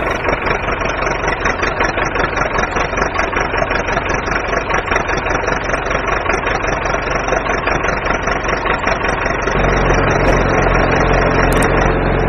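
Engine idling sound with a fast, even chugging. About ten seconds in it changes to a deeper, steadier hum.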